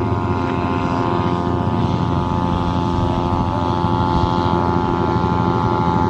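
Steady, loud drone of many held tones together: the humming of the guangan hummers on Balinese kites flying overhead. Wind rumbles on the microphone underneath.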